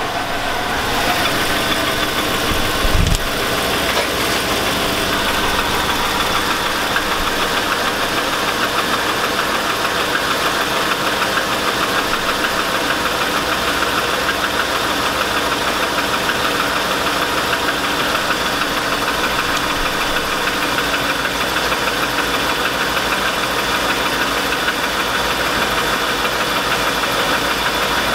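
A 2002 Chevrolet Avalanche's 5.3-litre Vortec V8 idling with a steady knock. The owner takes it for a rod knock, though he also wonders about piston slap or lifters. There is one short thump about three seconds in.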